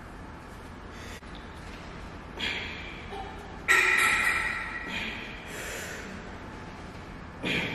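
Sounds of a set of cable chest flyes on a cable machine: four sharp sounds about a second or more apart, the loudest about four seconds in, each fading out over a second or so.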